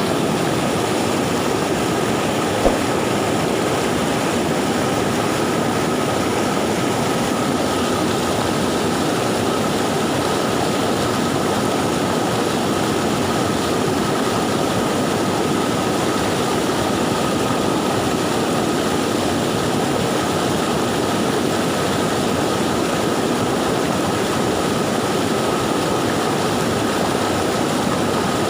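Swollen river rushing fast after a flood, a steady, loud roar of water. One brief click about three seconds in.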